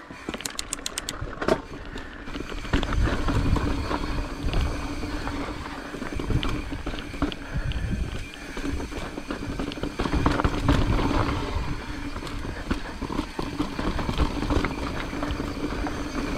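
Mountain bike on a rocky trail, heard from the rider's camera: wind buffeting the microphone and tyres rumbling over rock, with scattered rattling clicks from the bike.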